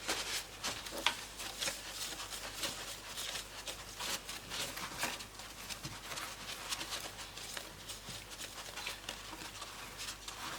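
Cloth wiping and rubbing a glossy laptop screen with glass cleaner: soft, irregular swishing and scuffing strokes.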